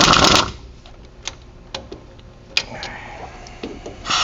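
Impact wrench hammering on the wheel hub assembly's mounting bolts for about half a second, then scattered tool clicks and clanks, then the impact wrench starting again at the very end.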